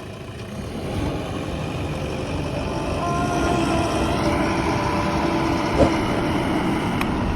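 Heavy diesel machinery engine running, getting louder over the first few seconds, with a steady whine joining about three seconds in.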